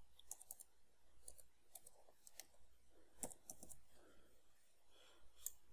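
Faint, irregular clicks of computer keyboard keys as a word is typed.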